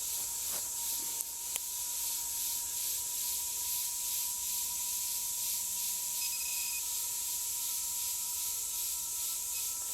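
Insects in the woodland making a steady high-pitched buzzing hiss that pulses about four times a second, with a faint steady whine under it and a couple of small clicks early on.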